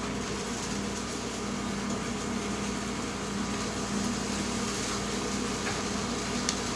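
Steady mechanical hum over a hiss from a running appliance, with one faint click near the end.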